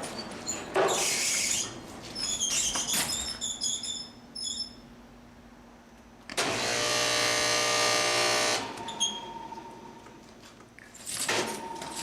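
Knocks and clatter, then a motor running for about two seconds midway, starting and stopping abruptly.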